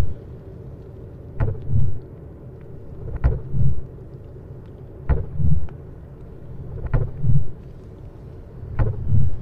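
Film soundtrack under the end credits: a steady low drone with pairs of low thumps repeating about every two seconds, five pairs in all, like a slow double pulse.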